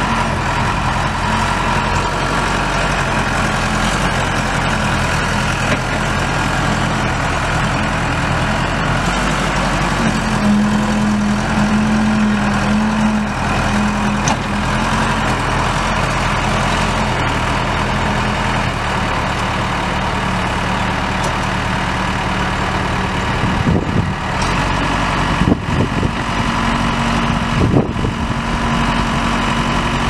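Case 580L backhoe's four-cylinder diesel engine running steadily, its speed stepping up a little for a few seconds about a third of the way in. A few sharp knocks come near the end.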